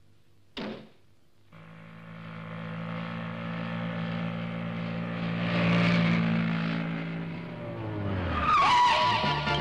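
Motorcycle engine running as the bike rides along, growing louder, then dropping in pitch about eight seconds in as it slows, with a short squeal as it brakes to a stop.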